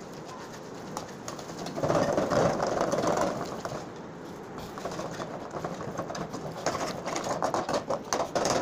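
Perforated metal skimmer stirring and scraping thick, oily tomato masala in an aluminium pot, with the masala sizzling. The stirring gets louder about two seconds in, and there is a quick run of scraping clicks near the end.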